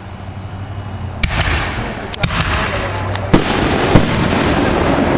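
Consumer fireworks going off: a sudden blast about a second in, then a continuous hissing crackle punctuated by several sharp bangs.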